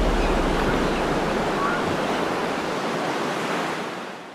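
A steady rushing wash of noise like surf, with a low rumble dying away in the first couple of seconds, the whole fading out near the end.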